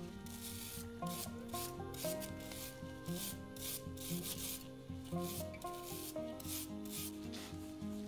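Wire brush scrubbing the oily toothed hub of a Singer Model 15 sewing machine's balance wheel, freshly sprayed with WD-40, in quick repeated scratchy strokes about two or three a second. Soft background music plays underneath.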